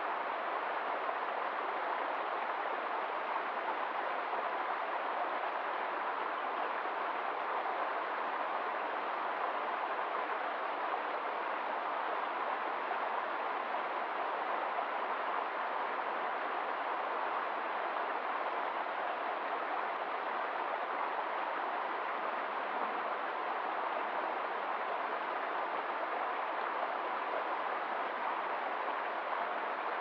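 Small rocky woodland stream running over stones and around fallen wood: a steady, unchanging rush of water.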